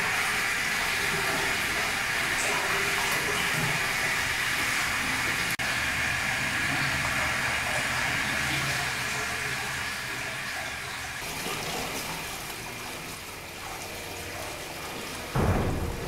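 Steady rushing, water-like noise. Near the end it gives way to a sudden loud, low boom.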